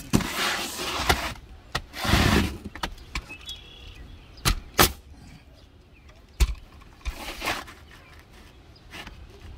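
Pneumatic coil roofing nailer firing nails through asphalt shingles and step flashing: several sharp cracks, two of them in quick succession about halfway through. Between the shots, longer scraping rustles of asphalt shingles being slid and pressed into place.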